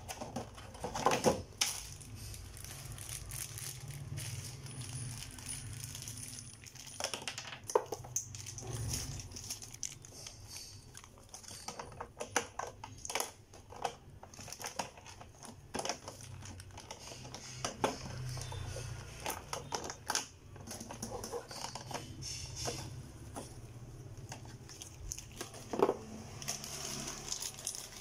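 Hard plastic parts of a Beyblade stadium being handled and fitted together, with small red plastic stoppers pressed into the stadium: scattered clicks and knocks, with a little plastic crinkling.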